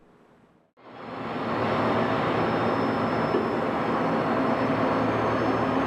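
Steady machine-shop running noise from a CNC lathe and the machinery around it, with a thin high steady tone over it, fading up about a second in.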